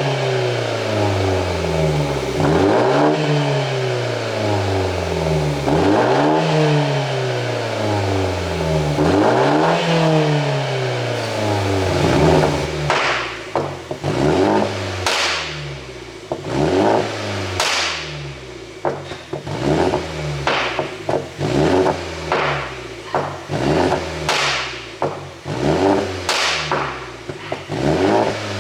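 BMW 530i's turbocharged four-cylinder engine, tuned for pops and bangs, revved up and let fall about every three seconds, then blipped in short stabs from about twelve seconds in, each lift-off followed by sharp exhaust pops and crackles.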